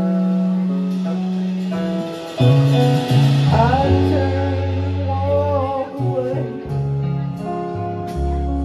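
Live electric band playing a slow song: electric bass holding long low notes under keyboard chords, electric guitar and drums. A melody line slides between notes through the middle.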